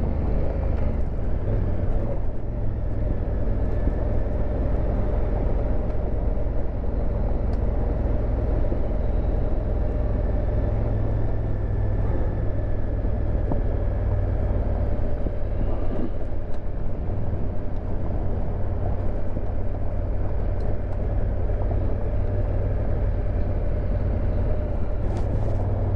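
2019 Honda Africa Twin CRF1000L DCT's parallel-twin engine running steadily as the motorcycle rides along a dirt trail, a continuous low rumble with no change in pace.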